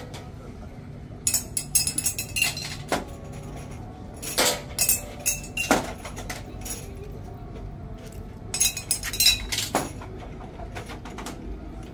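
Irregular clinks and clatters of dishes and cutlery, a dozen or more sharp strokes scattered over steady background noise.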